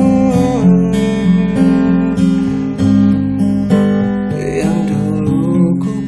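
Instrumental passage of an acoustic pop/rock song: strummed acoustic guitar chords, with a sustained melody line gliding above them.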